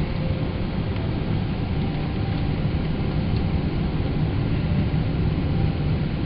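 Steady low rumble of a Boeing 777 heard from inside the passenger cabin: engine and airflow noise.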